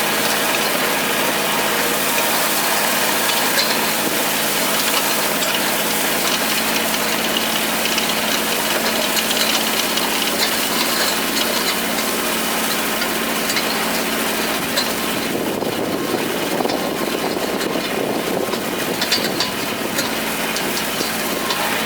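Kubota tractor's diesel engine running at a steady hum while pulling a hay tedder, the tedder's rotating tines spreading hay.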